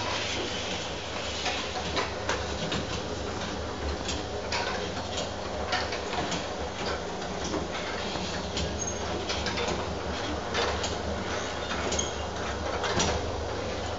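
Aerosol-can water-bath leak-test machine running: its can clamps and conveyor clatter with many irregular clicks over a steady low hum.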